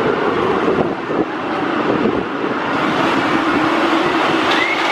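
A Texas Tornado roller coaster train, one of its PTC trains, running on the steel track: a steady rolling roar with a tone that slowly falls in pitch. A higher tone rises near the end.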